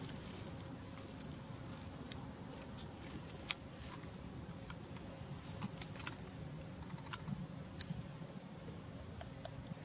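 Macaque eating fruit: scattered crisp clicks and small crunches, loudest about three and a half seconds in, over a steady low outdoor background noise.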